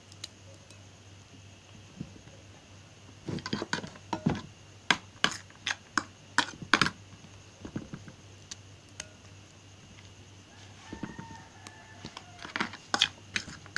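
Sharp clicks and taps of a utensil against a ceramic bowl, in quick clusters, as chopped pumpkin is added to beaten eggs. The taps come from about three to seven seconds in, then again near the end.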